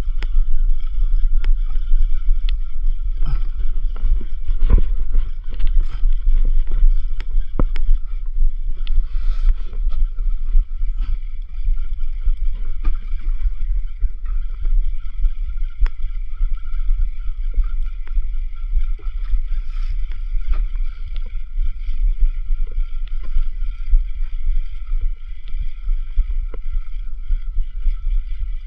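A small fishing boat's motor running steadily, with a heavy low rumble and a steady high whine, and scattered knocks in the first several seconds.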